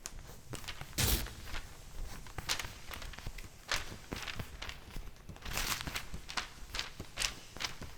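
Paper being handled, crumpled and rustled: irregular crisp crackles with a couple of longer swishes.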